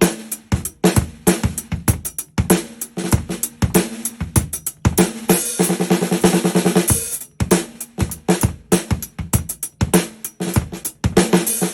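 A 13x5.5-inch Caucasian maple stave snare drum, unprocessed, struck in a quick run of hits that ring with a clear pitched tone, with a fast roll about five and a half seconds in that lasts a second and a half.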